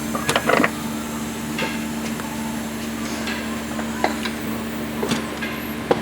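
Scattered sharp metal knocks and clanks, irregularly spaced, as a rear shock absorber is worked into its mount, over a steady low background hum.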